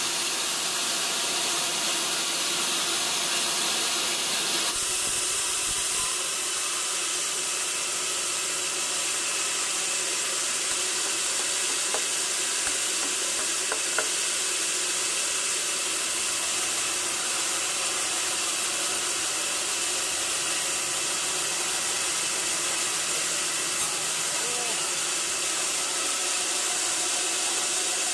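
Sawmill saw running with a steady hiss, holding level throughout with only a slight change in its sound about five seconds in.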